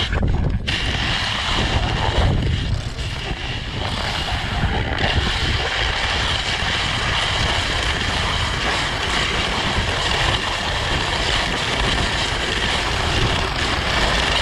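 Ski sliding over groomed, packed snow, picked up by a camera mounted on the ski itself: a steady scraping noise with a low rumble, mixed with wind on the microphone.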